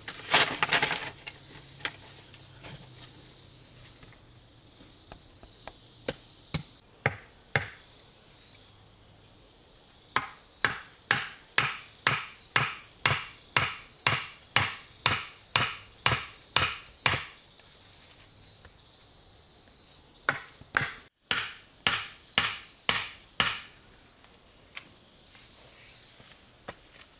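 A hand tool striking wood, in steady runs of sharp blows about one and a half a second: about a dozen in a row, then a pause, then five more. Insects chirr faintly behind it, and there is a short rustling burst at the very start.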